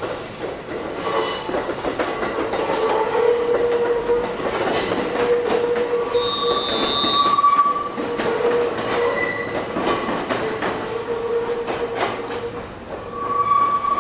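Train moving slowly through a station, its wheels squealing on the rails in several drawn-out high tones that come and go, with sharp clicks as the wheels cross rail joints.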